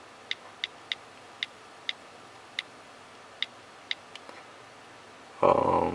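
iPhone 4S on-screen keyboard clicks as a password is typed: about nine short, sharp ticks at an uneven pace. A short, loud burst comes near the end.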